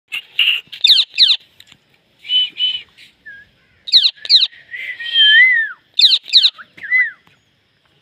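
Indian ringneck parakeet calling: three pairs of sharp, loud whistles that sweep steeply down in pitch, with raspier chattering calls and short gliding notes between them.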